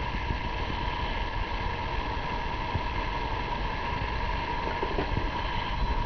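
Hot water pouring from a stainless-steel electric kettle into a mug, over an even steady noise.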